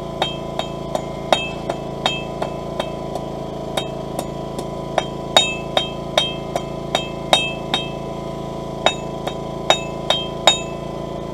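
Blacksmith's hammer striking hot steel on an anvil in steady light blows, about two to three a second, each with a bright metallic ring, as the tip of a round steel bar is drawn out to a point. The strikes pause briefly once, then resume.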